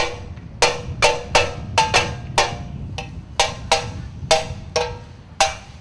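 Solo percussion: a drum struck in a loose, uneven rhythm of about two to three sharp strokes a second, each with a short pitched ring, some higher and some lower.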